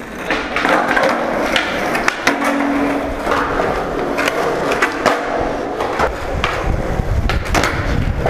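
Skateboard rolling on concrete: wheel rumble with scattered sharp clicks and knocks from the board, the rumble growing louder in the last two seconds.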